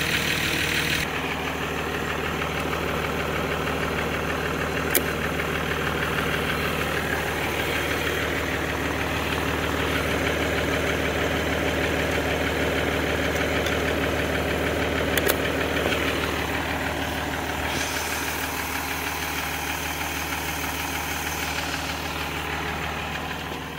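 Jeep Gladiator's 3.0 L EcoDiesel V6 idling steadily, with two faint clicks about five and fifteen seconds in.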